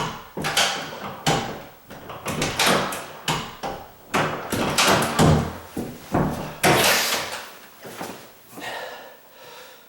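A series of knocks and clicks from a bathroom door being worked open and shut, its latch bumping against a strike plate that it will not fit into.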